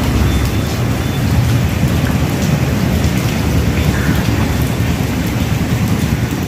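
Steady rain falling on standing floodwater, a continuous even hiss with a deep rumble beneath it.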